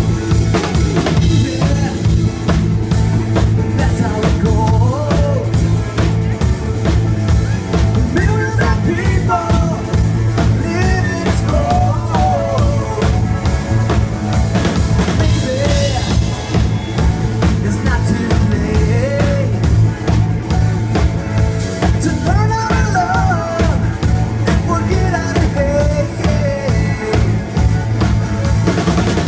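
Live rock band playing at full volume: drum kit, electric guitar, bass and keyboards, with a melody line bending in pitch over the beat.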